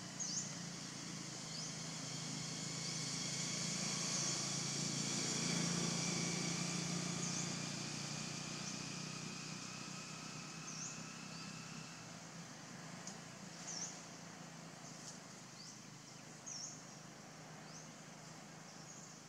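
Forest ambience: short high chirps recur every second or two over a low motor hum. The hum swells to a peak about six seconds in and then slowly fades, as a distant vehicle passing would.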